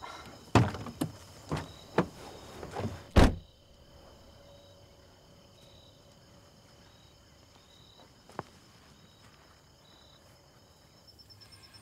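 A few sharp clicks or knocks in the first three seconds, the last one the loudest. Then quiet outdoor ambience with faint, steady insect chirring in a regular pulsing pattern and one small click near the end.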